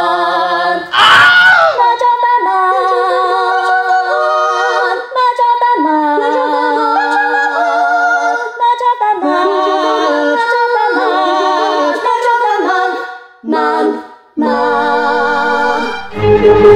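Several voices singing a cappella in harmony, with vibrato on held notes and a quick upward vocal swoop about a second in. The singing breaks off briefly near the end, and then fuller music comes in.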